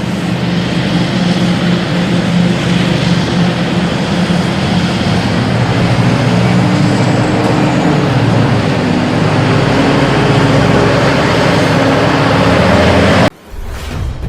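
Heavy diesel mining machinery running hard, a loud steady engine noise with a wide rushing roar over it. It cuts off abruptly about 13 seconds in.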